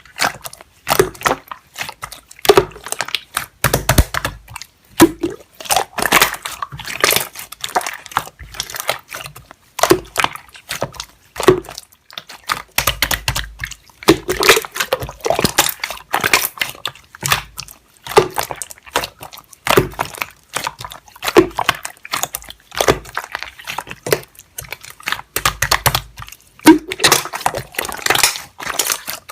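Slime being pressed and worked by hand, giving a dense, irregular run of sticky clicks and pops.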